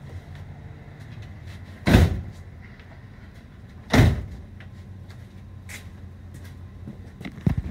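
A cargo van's door being shut: two loud thumps about two seconds apart over a steady low hum, with a few light clicks near the end.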